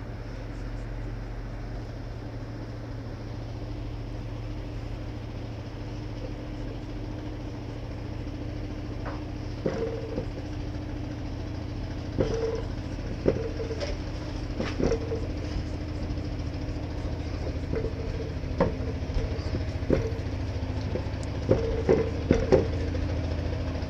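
A steady low mechanical hum, like a small motor running. Sharp knocks and clacks come and go over it, starting about ten seconds in and bunching together near the end.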